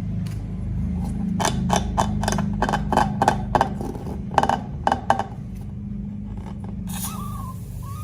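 Rubber balloons being handled: a quick run of sharp crackles and snaps in the middle, then squeaky rubbing near the end, over a steady low hum.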